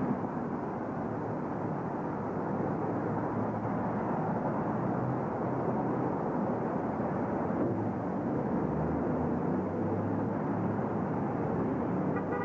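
Steady city street noise of traffic picked up by a camcorder microphone. A short pitched tone sounds right at the end.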